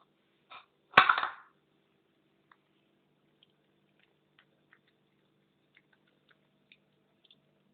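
Cat chewing broccoli: faint, scattered crunches and clicks, with one loud sharp click followed by a short crackle about a second in.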